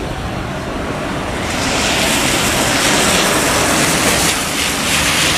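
Boeing 737-900ER's twin CFM56-7B turbofans at takeoff thrust as the airliner lifts off and climbs away: a broad jet noise that grows louder about a second and a half in.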